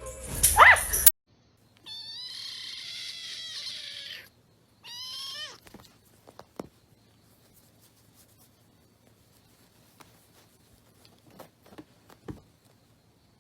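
A cat meowing twice: one long drawn-out meow, then a shorter one that rises and falls. Faint taps follow.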